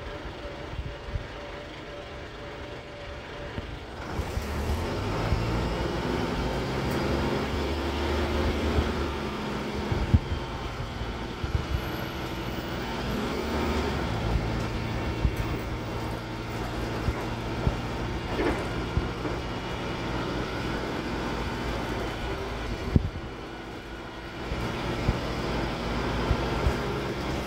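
Renault R312 city bus heard from inside the passenger cabin. The diesel engine idles at first, then about four seconds in it rises in pitch in steps as the bus pulls away and changes gear. It then runs steadily under way, with knocks and rattles from the body. Near the end it drops back briefly before pulling again.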